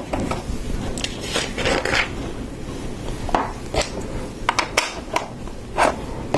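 Plastic LEGO pieces clicking and clattering as they are handled and pressed into place on a model, a string of irregular sharp clicks.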